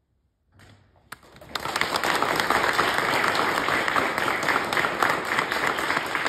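Audience applauding. A brief silence, a few scattered claps about a second in, then full, steady applause from about a second and a half in.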